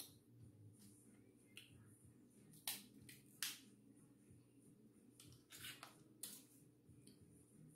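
A handful of sharp clicks and snaps from crab shell being picked apart and cracked by hand, the loudest about three and a half seconds in, over faint room hiss.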